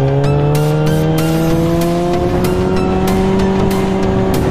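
Sport bike engine pulling steadily under acceleration, its pitch rising slowly, with wind rush. Background music with a beat plays over it.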